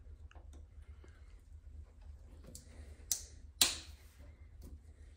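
Small clicks and ticks of boiler ignition electrode leads and their plastic connectors being handled and pushed into place, with two sharper clicks a little past halfway, the second the loudest, over a faint low hum.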